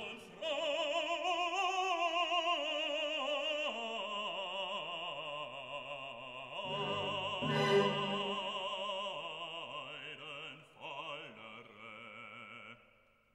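Background classical music in an operatic style: a solo melody with heavy vibrato over an accompaniment. It stops near the end.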